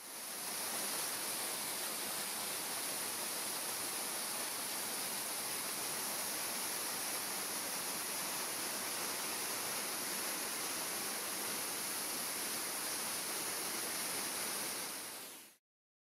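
Steady rushing hiss of water falling in a mountain-stream waterfall, fading in at the start and fading out shortly before the end.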